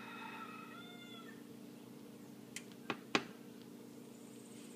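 A cat meows once, a drawn-out call of about a second, followed about two and a half seconds in by three quick light clicks, all over a steady low hum.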